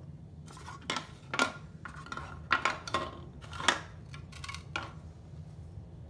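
Hard plastic toy pizza slices clattering and scraping on a wooden cutting board as they are pushed off it: a quick run of several knocks and slides over about four seconds.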